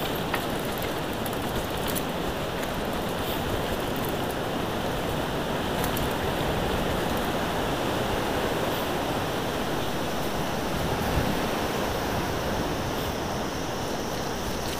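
Steady rushing noise of a mountain bike descending a rough dirt and gravel road: tyres rolling over gravel with wind over the camera microphone, and scattered small clicks and rattles.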